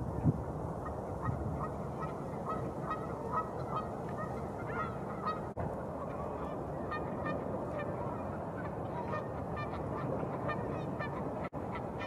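Canada geese honking in two runs of short, repeated calls, with a pause about halfway, over a steady rush of wind.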